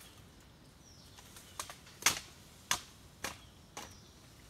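Five sharp chopping strikes on thin malingo bamboo over a wooden stump, a little over half a second apart. The second strike is the loudest.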